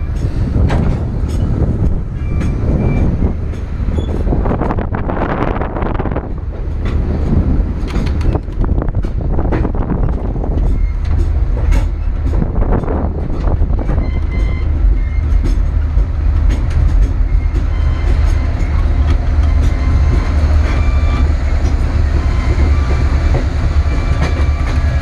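El Chepe passenger train running along the track: a steady low rumble with the clicking of the wheels over the rails, and a few brief high squeaks from the wheels.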